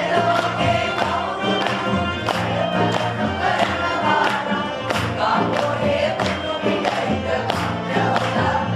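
A song sung by a group of voices together over music with a steady drum beat.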